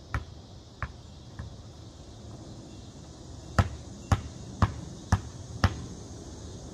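Basketball bouncing on a concrete driveway: three fading bounces in the first second and a half as the ball comes back from the hoop, then five even dribbles, about two a second, past the halfway point.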